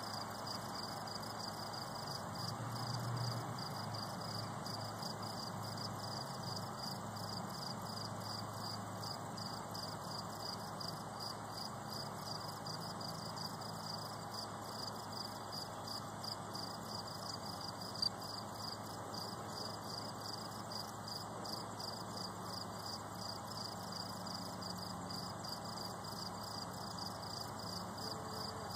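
Crickets chirping in a steady, evenly repeated high-pitched rhythm, over a faint low hum. A single short tick comes about two-thirds of the way through.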